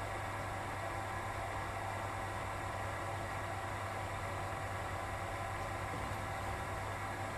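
Steady low hum with an even hiss, unchanging throughout, with no bat or ball impacts.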